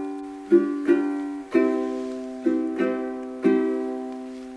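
Background music: chords strummed on a plucked string instrument about once a second, each left to ring and fade.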